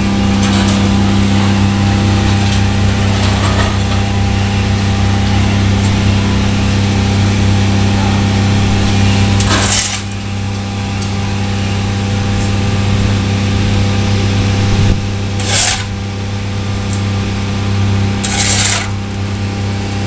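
A steady low engine or machine hum, with three short hissing bursts about ten, fifteen and a half and eighteen and a half seconds in.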